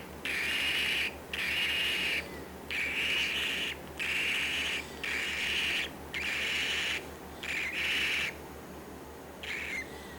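A baby bird's raspy, hissing calls, repeated in bursts of about a second with short gaps, around eight times.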